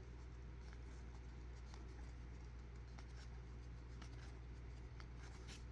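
Faint soft ticks and rustles of paper trading cards being slid one by one off a stack from hand to hand, over a steady low hum.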